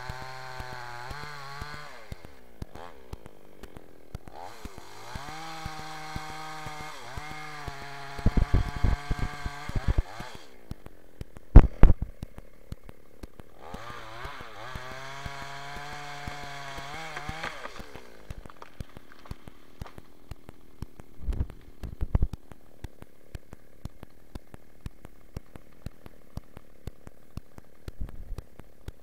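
New West 628 two-stroke chainsaw cutting into a trembesi trunk, revving up in three surges and dropping back to a quieter idle between them and through the latter part. Several loud thumps break in, the loudest about twelve seconds in.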